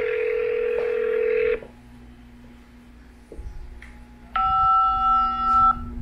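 Telephone tones heard over a phone line while a transferred call waits to be answered: a steady ringing tone for about two seconds at the start, then, after a pause, a second steady two-pitch telephone tone lasting about a second.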